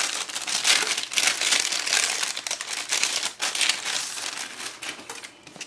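Clear plastic packaging sleeve crinkling as hands open it and slide out a stack of paper cards, an irregular crackle that dies down near the end.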